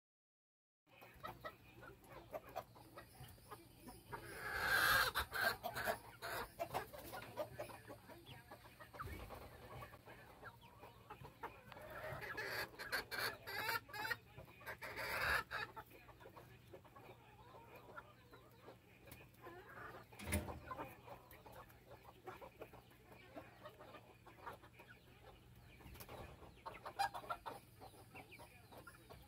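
A small flock of young chickens clucking while they feed, with louder bursts of clucking about four seconds in and again around twelve to fifteen seconds in. A single sharp knock comes about twenty seconds in.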